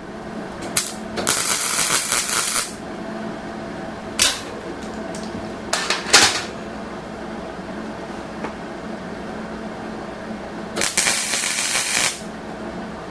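Arc welding tack welds on steel go-kart frame tubing: four crackling bursts of arc, two of them over a second long and two short. A steady hum, typical of the welding machine, runs underneath.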